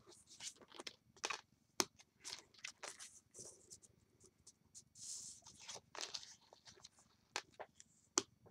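Card stock being folded, creased and moved about on a crafting mat: faint scattered paper rustles, taps and clicks, with a brief brushing swish about five seconds in.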